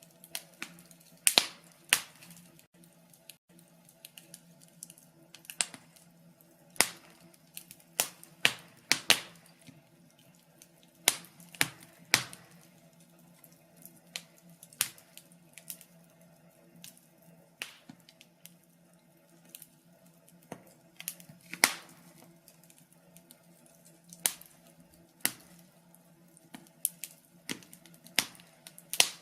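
Wood fire crackling in a fireplace: irregular sharp pops and snaps from the burning logs, some louder than others, over a faint steady low hum.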